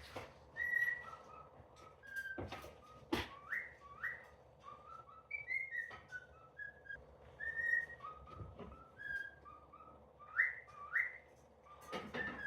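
Cockatiel whistling: a string of short clear notes, some held briefly and some quick upward glides, with a few sharp clicks in between.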